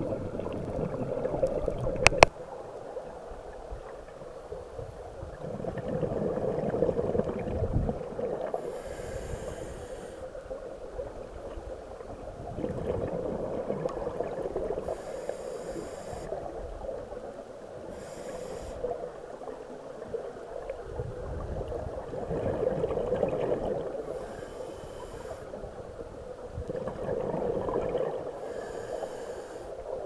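Scuba diver breathing through a regulator underwater: a slow cycle of bubbling exhalations and hissing inhalations, a breath every five seconds or so. One sharp knock about two seconds in.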